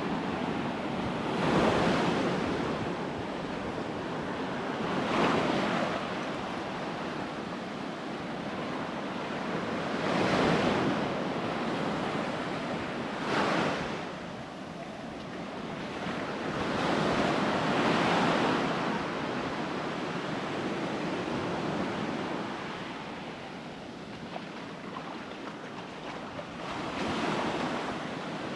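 Rough ocean surf breaking on a sandy beach, waves crashing in repeated surges every few seconds over a steady wash.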